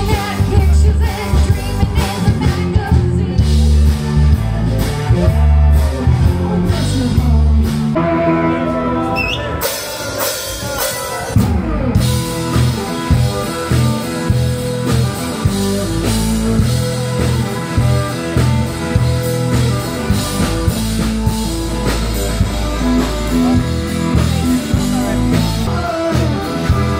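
Blues-rock music with a singer, drum kit and guitar. It changes abruptly about eight seconds in and again about twelve seconds in.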